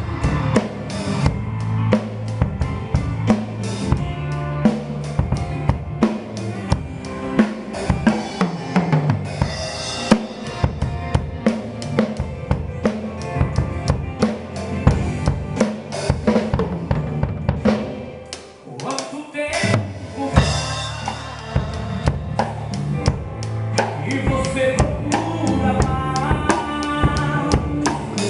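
Instrumental passage of a forró gospel song, with a drum kit playing a driving beat of bass drum, snare and rimshots under the band. The drums drop out briefly about two thirds of the way through, then come back with a melody on top.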